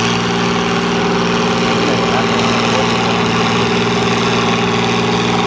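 Oliver 1655 tractor's engine running steadily under load, holding an even pitch as it pulls a weight-transfer sled at slow, governed speed.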